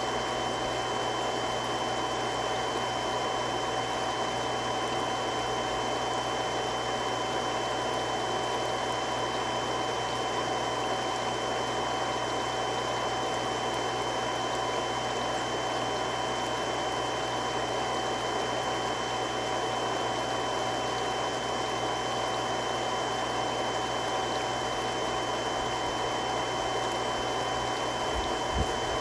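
Three-stage multistage centrifugal irrigation water pump running steadily: an even rushing hiss with a few constant whining tones and a low hum on top. A brief low bump sounds near the end.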